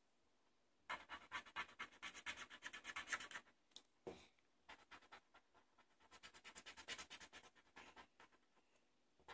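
Felt-tip pen scratching faintly on paper in quick back-and-forth strokes, several a second, as an area is coloured in; there is a brief pause with a soft knock about four seconds in before the strokes start again.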